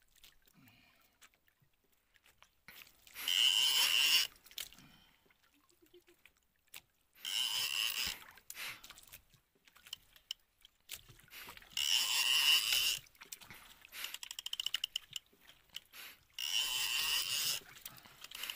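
Baitcasting fishing reel whirring as line is wound in, in four quick bursts about four to five seconds apart, the pump-and-wind rhythm of fighting a hooked fish, with faint rapid ticking from the reel in between.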